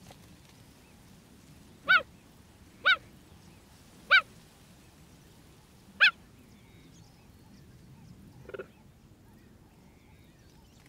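Cheetah chirping: four short, high chirps in about four seconds, each rising and falling in pitch, then a fainter, lower call.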